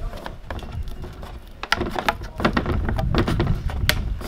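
Handling noise from a plastic measuring strip being pressed and slid into the channel of an aluminium roof-rack crossbar: a dense run of sharp clicks and taps starting about a second and a half in, over low rubbing and bumping.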